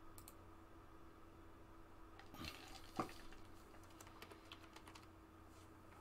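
Faint typing on a computer keyboard: scattered light key clicks, with a brief rustle and one sharper click about halfway through.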